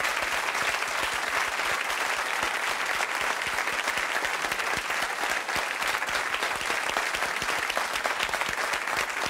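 Studio audience applauding steadily: many people clapping at once.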